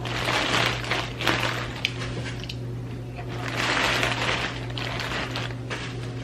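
Close-miked eating sounds from a seafood boil: two long slurping sucks, each about a second and a half, with wet clicks and smacks between them.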